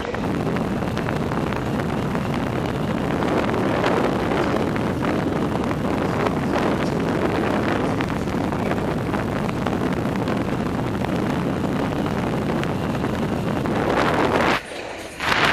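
Steady wind rush on the microphone of a camera moving at riding speed around an indoor velodrome. The sound drops out briefly near the end.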